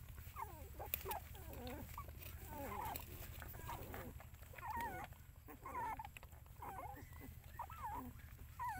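Nursing puppies whimpering and squeaking: a scattered string of short, wavering, high cries.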